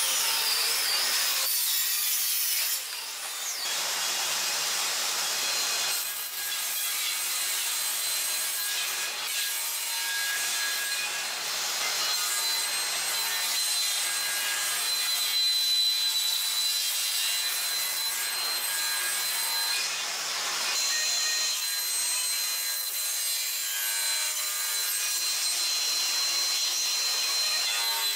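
Sliding table saw cutting wood, its blade ripping through live-edge hardwood boards with a steady high whine over the cutting noise. The sound shifts abruptly a few times as the shots change.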